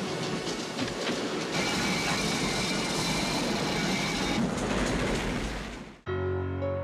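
A train rumbling along its rails, with a high steady whine from about 1.5 to 4.5 s. The noise fades out just before the end, and sustained soundtrack music begins.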